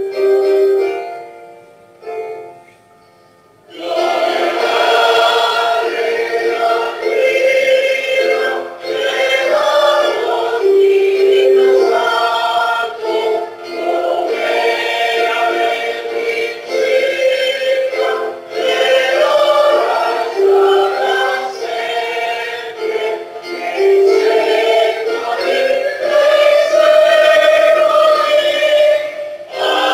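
Choir singing a slow hymn, starting about four seconds in after a short quiet pause.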